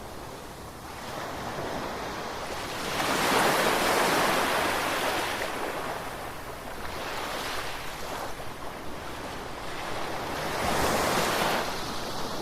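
Ocean waves breaking and washing in, the surf rising and falling in swells: a big one about three seconds in, a smaller one midway and another near the end.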